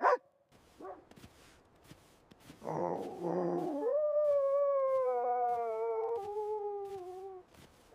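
Sled dog howling: one long howl that falls slightly in pitch over about three and a half seconds, led in by a short rough cry. A sharp knock sounds at the very start.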